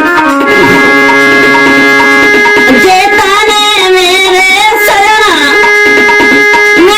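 Indian devotional-style song music: sustained keyboard-like notes over percussion, then from about three seconds in a melody with heavy vibrato.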